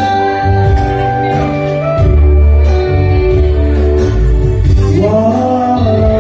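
Live band playing through a PA at a sound check: held keyboard chords over guitar and a heavy, pulsing bass. A man's singing voice comes in about five seconds in.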